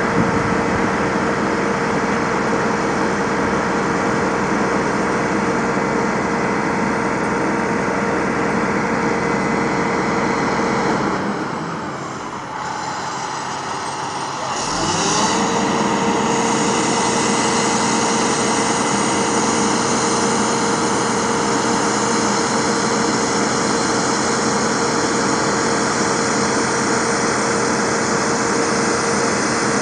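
Aerial fire truck's diesel engine running steadily with an even hum. About eleven seconds in the engine note drops away, then it rises back up about fifteen seconds in and runs on steadily.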